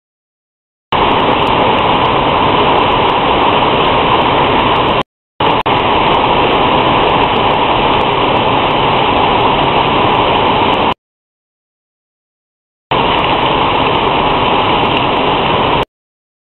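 Heavy rain heard through a CCTV camera's microphone as a loud, steady rush of noise. The sound cuts in and out abruptly: it starts about a second in, drops out for a moment around five seconds and for about two seconds near eleven seconds, then stops just before the end.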